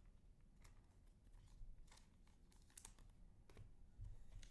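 Quiet handling of trading cards and foil card packs on a table: a few faint, scattered clicks and taps.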